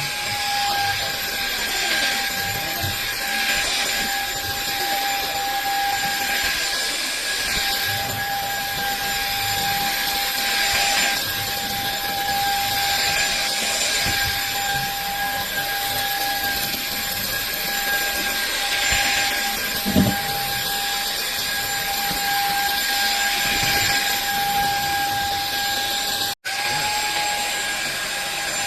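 SunSare X7A cordless vacuum cleaner running at a steady high whine over a rushing hiss. There is a short knock about two-thirds of the way through. Near the end the sound cuts out for an instant and the motor comes straight back up to speed.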